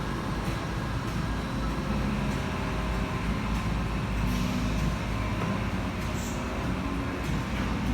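Express car wash machinery running: a steady low mechanical rumble with faint humming tones.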